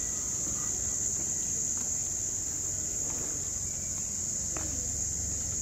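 Steady, unbroken high-pitched chirring of a cricket chorus, with a low steady hum underneath.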